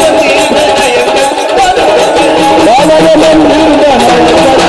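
Marathi Waghya devotional folk music: a wavering melody line over steady, fast rattling percussion.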